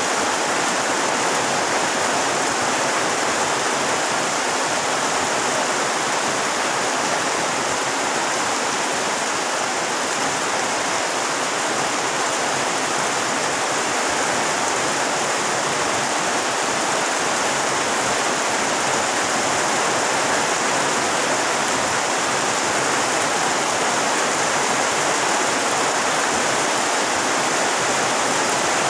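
Heavy rain pouring down steadily, splashing onto pond water and foliage: an even, dense hiss.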